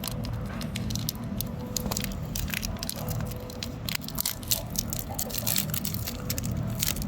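Foil trading-card booster pack crinkling and crackling as it is handled and torn open, a run of quick irregular crackles over a steady low hum.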